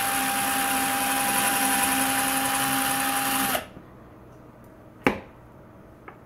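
Cordless drill spinning a 2 mm high-speed steel bit through the bore of a stainless steel heat break, clearing out the rough bore. The drill runs with a steady whine, stops abruptly about three and a half seconds in, and a single sharp click follows.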